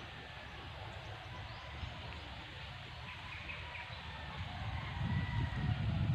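Rural outdoor ambience: faint, thin bird calls over a low rumble of wind on the microphone, which grows louder about five seconds in.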